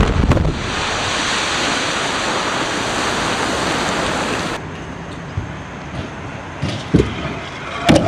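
Quarry blast in a rock face: a cluster of sharp detonation cracks as it opens, then a loud steady rush of the blast and falling rock. This drops off suddenly about four and a half seconds in, leaving a quieter hiss with one thump near seven seconds.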